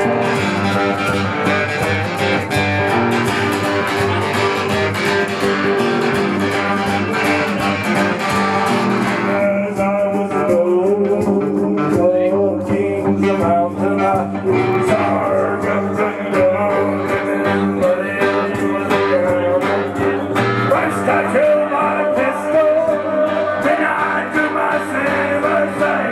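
Live music from two guitars, an acoustic guitar and an electric guitar, playing a song together. About nine seconds in the bright strumming falls away and a lower melodic line carries on.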